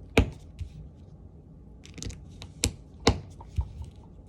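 Plastic Lego pieces being handled and pressed together, giving a handful of sharp clicks. The loudest come about a quarter of a second in, then around two and a half and three seconds in, with lighter ticks between.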